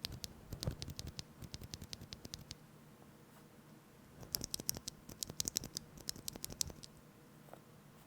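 Typing on a custom mechanical keyboard with linear switches, PBT keycaps and a polycarbonate case and plate: two quick runs of keystrokes, the second starting about four seconds in and sounding brighter and louder.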